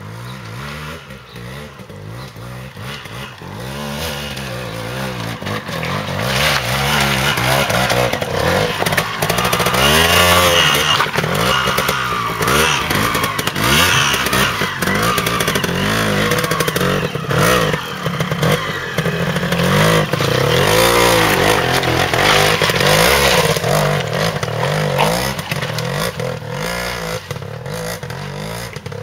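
Trials motorcycle engine revving in repeated short blips, the pitch swooping up and down as the bike is ridden up a rocky section. It grows louder a few seconds in as the bike comes close, then eases off near the end.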